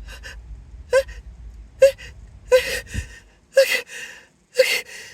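A person's hitching gasps and whimpering catches of breath as a sneeze builds during a sneezing fit: short voiced catches, then three longer, breathier gasps about a second apart.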